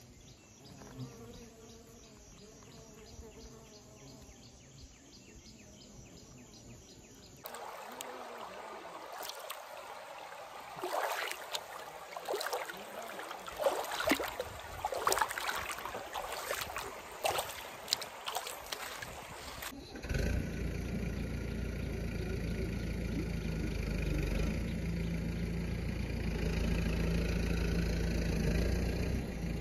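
Bare feet stepping and splashing in a shallow, stony stream, with sharp splashes over the running water, after a quiet stretch. About twenty seconds in the splashing cuts off and a steady low rumble with a faint hum takes over.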